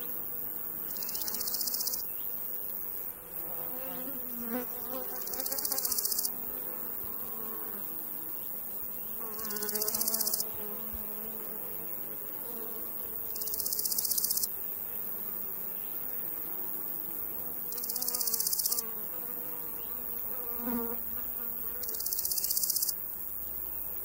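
Summer meadow insects: flies buzzing past with a wavering hum, and a grasshopper stridulating in bursts about a second long, roughly every four seconds, each burst growing louder to its end.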